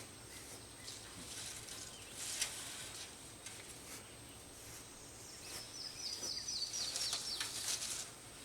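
A songbird singing a quick series of short, repeated descending notes, starting about halfway through and lasting a couple of seconds, over faint scattered rustling and crackling.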